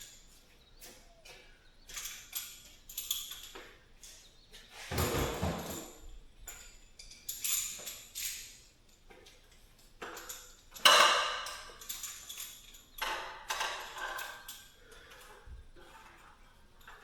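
Irregular metallic clinks, rattles and scrapes of garage door roller hardware and tools being handled. There is a louder clatter about five seconds in and a sharp knock about eleven seconds in.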